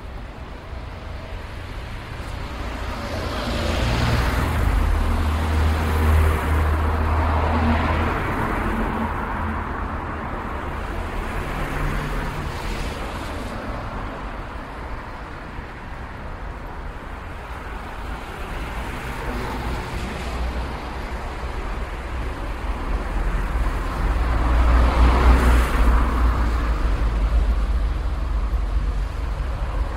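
City street traffic: cars driving past over a steady low engine rumble, with louder passes swelling and fading about four seconds in and again near the end.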